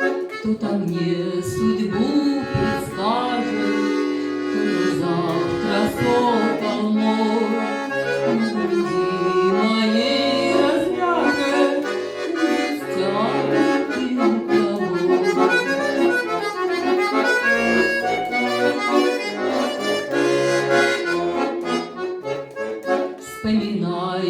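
Accordion playing an instrumental passage between sung verses of a Russian romance, melody over held chords and bass notes.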